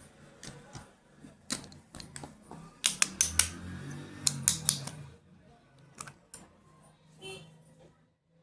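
Sharp clicks and taps of makeup packaging and hard plastic cases being handled, with a quick cluster of them about three to five seconds in, over a faint low hum.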